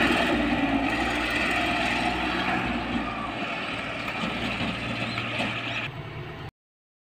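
Diesel engine of heavy construction machinery running steadily, slowly growing quieter, then cutting off suddenly near the end.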